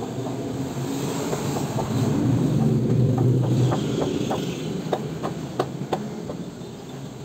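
A small engine running steadily, fading out about three and a half seconds in. Over the second half comes a string of light, irregular clicks, a few a second.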